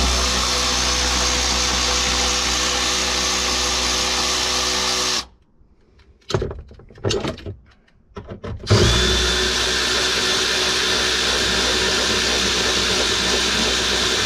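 Milwaukee M12 cordless ratchet running steadily in two long spells of about five seconds each, backing out Torx bolts, with a few short clicks and knocks in the pause between.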